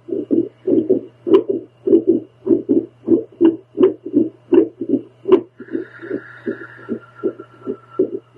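A woman's heartbeat heard through a handheld home doppler: a fast run of pulsing beats, often in close pairs and unevenly spaced, which fits the irregular rhythm her heart has fallen into. A steady low electrical hum runs underneath, and a few sharp clicks cut through.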